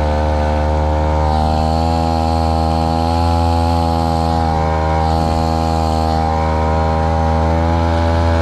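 Small grass-cutter engine driving a long-tail propeller shaft on a boat, running steadily at high throttle, its pitch rising slightly about a second in.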